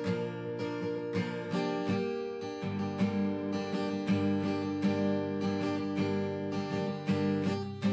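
Background music: strummed acoustic guitar chords with a steady rhythm, changing chord a couple of times.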